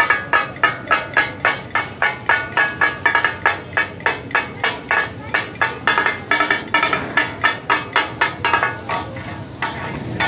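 Two steel spatulas striking a large flat iron griddle in a fast, steady rhythm, about four ringing clangs a second, as mutton katakat is chopped on it. The strikes grow quieter and sparser near the end, leaving a steady sizzle.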